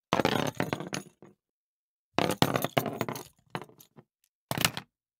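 Small hard pieces clinking and clattering together in bursts as hands work across the foley table's tile and pebble surface: a long burst at the start, a longer one about two seconds in, then two short ones near the end.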